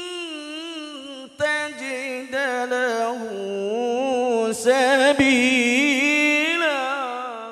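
A man's voice reciting the Qur'an in the melodic tilawah style into a microphone: long, ornamented phrases with wavering pitch and a few short breaks for breath. The voice is loudest about two-thirds of the way through and fades out at the end as the verse closes.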